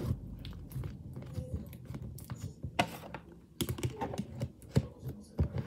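Irregular light clicks and taps of small objects being handled on a tabletop, a few sharper ones in the second half.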